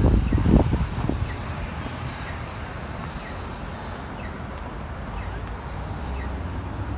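Low, steady rumble of city street traffic, louder in the first second or so, then settling to an even background hum.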